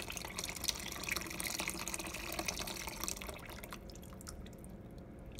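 Canned coconut milk pouring from the can into a pot of soup, splashing into the liquid. The stream thins to a trickle near the end.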